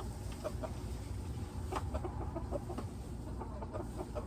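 Several chickens clucking softly and intermittently as they settle on the roost for the night, with one sharp tap a little under two seconds in, over a steady low rumble.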